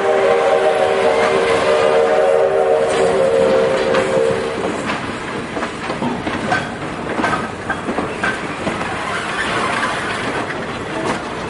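A train's passenger cars rolling past with wheels clicking and rattling over the rail joints. The steam locomotive's chime whistle sounds a steady chord at first and cuts off about four and a half seconds in.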